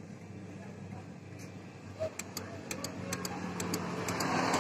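Yamaha X-Ride scooter's electric starter clicking repeatedly without cranking the engine, sharp irregular clicks several a second, coming faster after about two seconds. The clicking shows the start button and bendix working; the mechanic predicts a starter motor fault, worn brushes or a magnet come loose.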